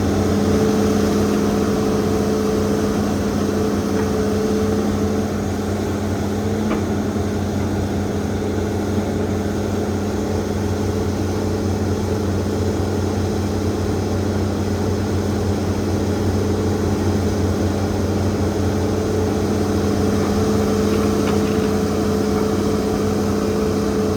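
Hitachi ZAXIS200 hydraulic excavator's diesel engine running steadily, easing slightly about five seconds in, with a couple of faint ticks.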